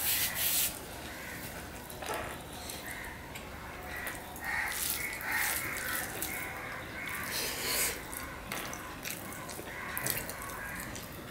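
Close-up eating sounds: wet chewing and lip-smacking while eating rice and curry by hand, with fingers working the rice on a steel plate. A short rustle at the very start as a tissue wipes the mouth.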